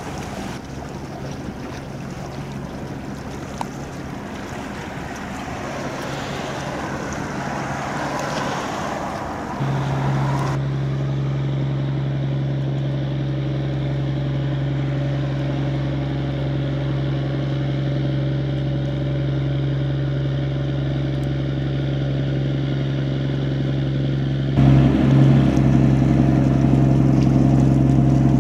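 Ship engines running as a steady low drone across the water, which comes in about ten seconds in and grows louder near the end. Before it there is only a noisy hiss of wind and water.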